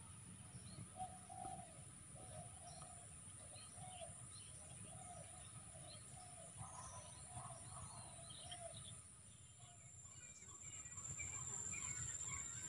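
Birds calling: one repeats short notes in a steady string, about two a second, that stops near the end, with scattered higher chirps from others and a steady high whine underneath.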